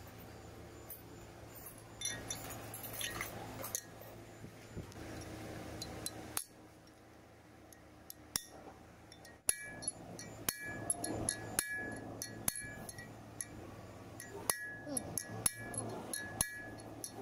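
Irregular light metal-on-metal taps, each with a short high ring, as a steel drift is worked around the bearing bore of a Komatsu GD755 grader's front hub housing to fit the hub bearing. The taps are sparse and soft at first and come quickly and more sharply from about ten seconds in.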